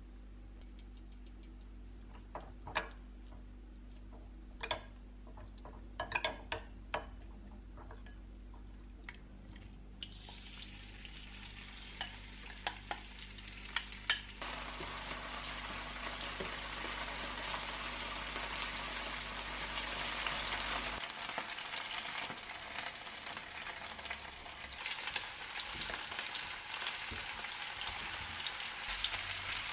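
A metal spoon clicks against a glass bowl while seasoning is mixed into raw chicken. About halfway in, the chicken pieces go into a hot stainless steel frying pan and sizzle steadily as they fry and are stirred with a wooden spatula.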